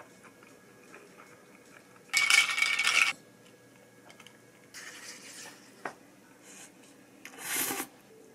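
Tableware clinking and clattering in a few short bursts, the loudest about two seconds in and lasting about a second, with a sharp single click near the middle: chopsticks being laid down and a glass of iced drink being handled.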